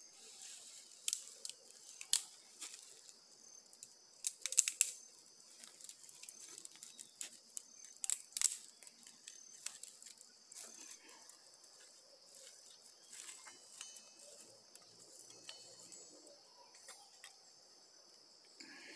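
Dry leaf litter crunching underfoot and dry twigs crackling as they are handled, in irregular bursts, over a steady high-pitched insect chorus.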